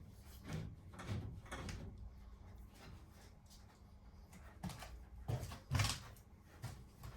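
A string of irregular wooden knocks and bumps as timber battens are handled and fitted against the boat's wall, with a few light ones near the start and louder ones about five to six seconds in.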